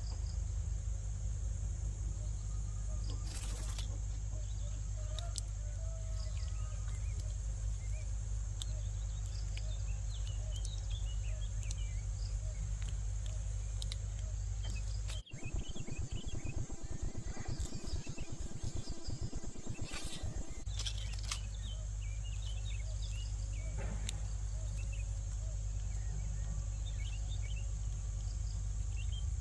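Outdoor ambience: a steady high insect drone, with many short bird chirps scattered over it and a low steady rumble underneath. The sound changes abruptly for about five seconds near the middle.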